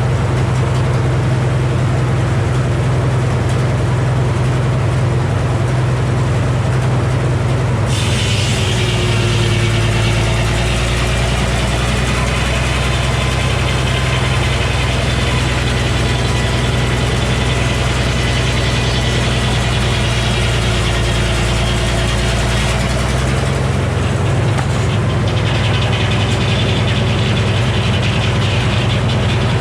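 The engine powering a Frick circular sawmill runs steadily. About eight seconds in, the saw blade bites into a white oak log, and a high cutting whine runs for about fifteen seconds. A shorter stretch of the same whine follows near the end.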